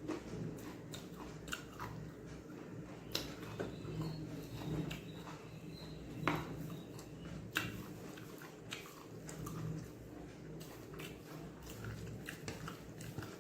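A person chewing and eating chicken fried rice and egg podimas, with irregular wet mouth clicks and smacks; the sharpest click comes about six seconds in.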